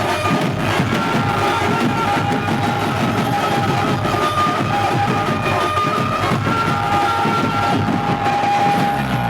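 Dhumal band music: dense, fast drumming under a sustained melody line.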